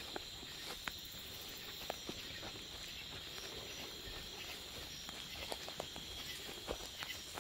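Footsteps on a leafy forest trail: irregular light crunches and snaps of twigs and leaves underfoot. Under them runs a steady high chorus of night insects.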